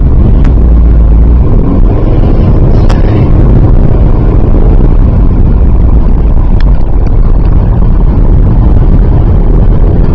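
Steady, loud low rumble of road and engine noise inside a moving car's cabin, with a few faint ticks.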